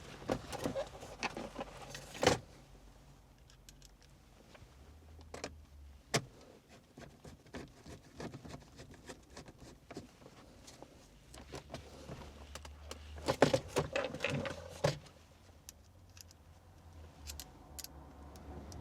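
Scattered clicks, taps and rattles of plastic car-interior trim being pushed into place and screwed down by hand, with a cluster of louder knocks about two-thirds of the way through.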